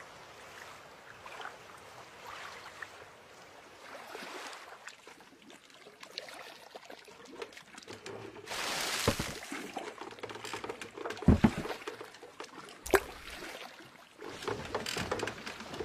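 Film sound effects of water trickling and dripping, with scattered small clicks. About halfway through comes a brief rush of noise, followed by two sharp knocks.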